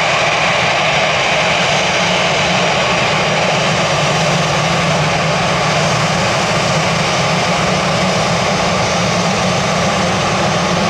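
Jet engines of an Airbus A320-family airliner running at low taxi power as it rolls past close by: a loud, steady whine and rush that does not change.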